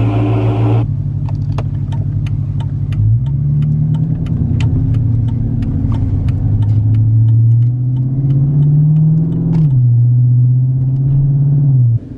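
A car engine running at a steady low pitch, rising in revs about three seconds in and dropping back near the end, with a string of sharp clicks or pops over it.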